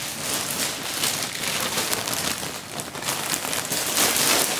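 Clear plastic packaging bag crinkling and crackling without a break as it is handled to pull a bundle of cotton dish towels out of it.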